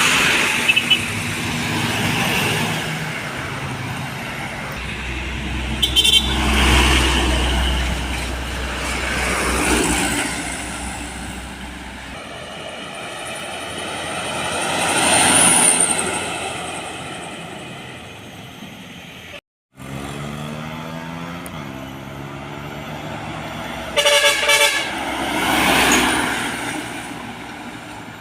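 Heavy trucks passing one after another on a road, with their engine noise swelling and fading, and short horn toots several times.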